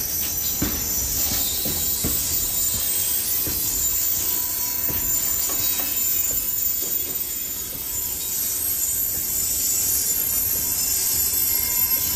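Covered hopper wagons of a freight train rolling slowly past on steel wheels: a low rumble with irregular knocks as wheels cross rail joints, mostly in the first half, and a thin high-pitched wheel squeal throughout.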